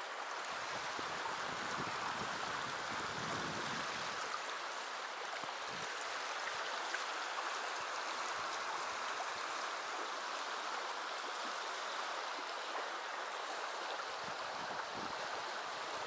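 Small, shallow river rushing over stones through a riffle: a steady hiss of running water.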